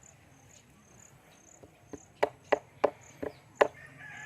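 Crickets chirping in a steady high pulse. About halfway through, a hammer strikes six times in quick succession, about three sharp knocks a second.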